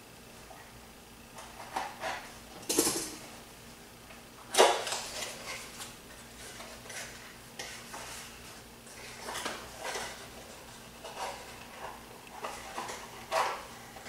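Drone parts and packaging being handled and unpacked: irregular knocks, clatters and rustles of hard plastic and box material, the loudest a sharp knock about four and a half seconds in.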